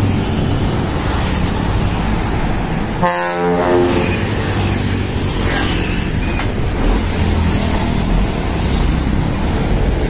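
A truck's trumpet air horn gives one short blast about three seconds in, over steady road and wind noise from passing traffic.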